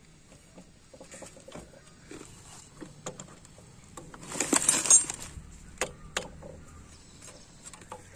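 Metal hand tools and loose engine parts clicking and clinking against the opened crankcase of a Hero Honda Passion Pro engine, with a louder rattling clatter about halfway through and a few sharp clicks after it.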